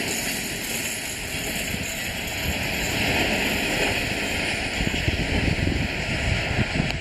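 Wind buffeting the microphone over the low rumble of two ALCO diesel locomotives approaching.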